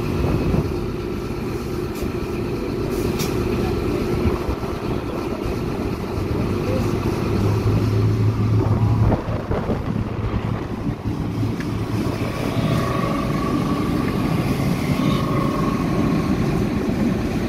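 Diesel train engines running at close range, including a vintage green-and-cream diesel rail motor. It is a steady engine drone, with a stronger low hum about eight seconds in.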